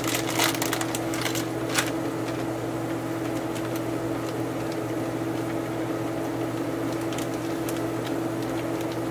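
A steady low hum throughout, with a plastic bag of shredded Parmesan crinkling and rustling in the first second or two as it is shaken over the pot, then a single sharper click and a few faint ticks later on.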